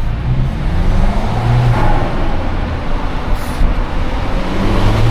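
Twin-charged Mercedes engine running at low speed under light throttle, its pitch rising and falling a little as the throttle changes.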